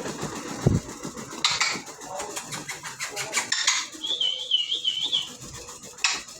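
African grey parrot giving a high, wavering whistle about four seconds in, lasting about a second, with a few short scratchy rasps before and after it.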